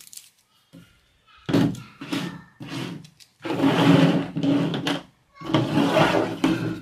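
Unboxed gear being slid and moved around on a table by hand: plastic cases, a power brick and cables rubbing and scraping in three stretches of a second or more, with a few knocks.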